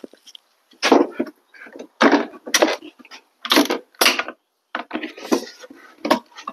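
Handling clatter from the chainsaw and its fuel and bar-oil containers: a string of about eight short knocks and scrapes, irregularly spaced.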